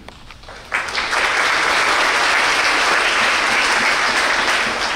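Applause: many hands clapping, starting under a second in and dying away near the end.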